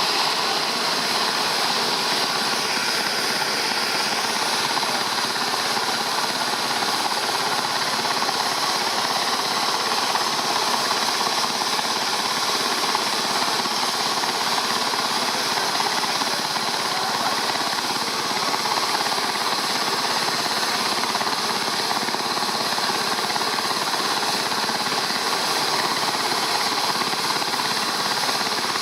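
Rescue helicopter running close by: a fast, steady rotor chop over a high, steady turbine whine.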